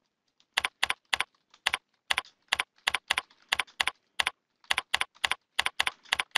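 Computer keyboard typing: a run of separate key clicks at an uneven pace, about three to four a second, starting about half a second in.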